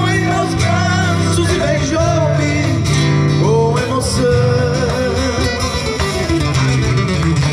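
A slow song in Portuguese sung to guitar, the voice holding long notes that waver in pitch over steady guitar chords.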